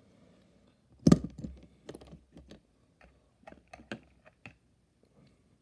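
A run of small, sharp clicks and taps, the loudest about a second in, from die-cast model cars being handled and set down.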